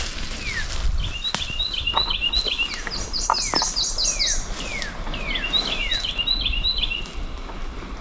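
Songbirds singing in the woods: repeated quick chirping phrases and slurred falling whistles, with a brief high run of notes about three seconds in.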